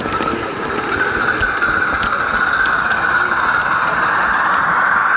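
H0-scale model train running on track, heard from a camera riding on it: a steady whirring from the wheels and drive that rises slightly in pitch, with a few light clicks.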